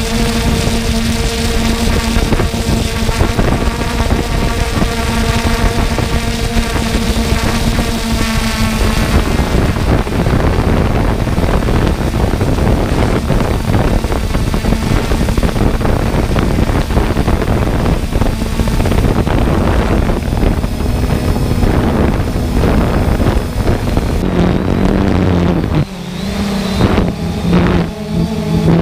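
Multirotor drone motors and propellers humming steadily, with wind rushing over the microphone. The steady pitched hum is clear for the first third, is then mostly covered by the rushing noise, and returns at a slightly lower pitch near the end.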